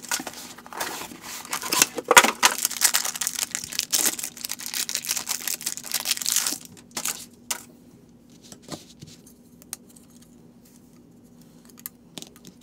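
Packaging being torn open and crinkled as a hard drive is unpacked: a dense rustling that stops about six and a half seconds in. After that come a few scattered light clicks as the drive and its plastic caddy rail are handled.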